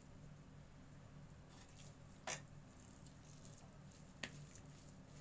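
Faint, soft squishing of fingers mashing crumbled paneer in a plastic bowl, with two short knocks a little after two seconds and a little after four seconds.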